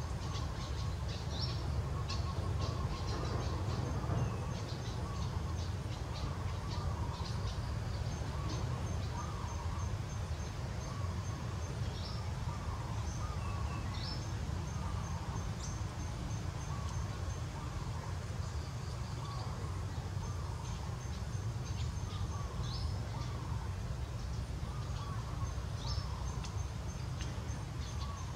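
Outdoor ambience of birds calling: short wavering calls repeating every second or two, runs of rapid, evenly spaced high notes, and occasional sharp high chirps, over a steady low rumble.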